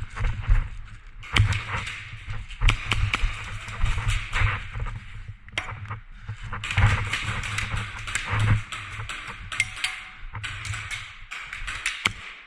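A player moving quickly on foot: irregular footsteps and thumps with rustling gear and scattered sharp taps.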